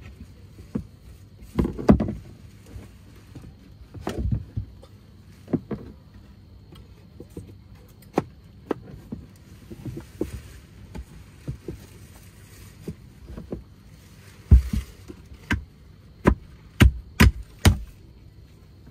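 Hard board panels knocking and clacking as they are handled and fitted together in a car's cargo area: scattered sharp knocks throughout, a louder clatter about two seconds in, and a run of six loud knocks in the last few seconds.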